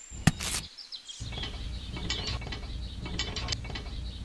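Model tractor with a disc harrow pushed by hand through wet mud: quick ratchet-like mechanical clicking in repeated clusters over a low rolling rumble, with one sharp click just after the start.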